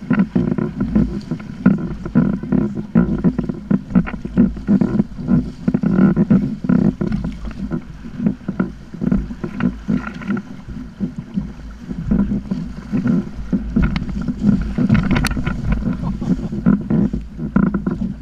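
Wind buffeting the microphone over water splashing and lapping against a sit-on-top kayak's hull, a continuous rough, fluttering noise with one sharp click about 15 seconds in.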